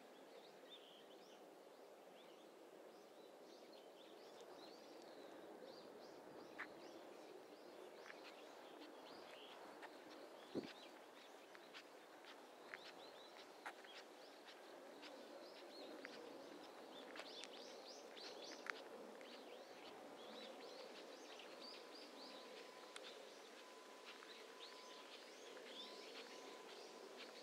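Faint ambience of small birds chirping, many short calls, over a low even background haze. Scattered light clicks, with one sharper knock about ten seconds in.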